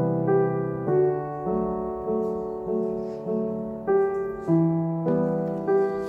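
Background piano music, a new note or chord struck about every 0.6 seconds over held bass notes.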